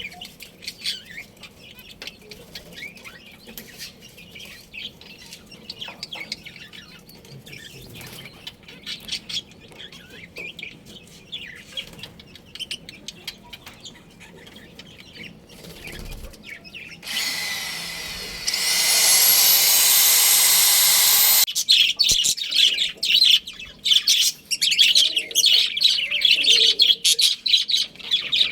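Budgies chirping: faint scattered chirps at first. About 17 seconds in, a loud rushing noise with a rising whine runs for about four seconds. Then comes a loud, busy stretch of chirping.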